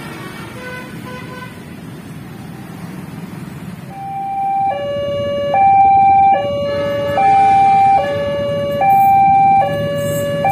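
Road traffic noise, then about four seconds in a level-crossing warning alarm starts up: an electronic two-tone signal alternating evenly between a high and a low tone, each held a little under a second, steady and loud.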